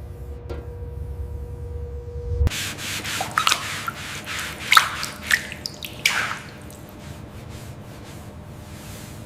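A low steady hum for about two and a half seconds, which cuts off suddenly. Then a series of rough rubbing strokes, like hand sanding or scrubbing, loudest in the middle, that trail off into a fainter scratchy hiss with small ticks.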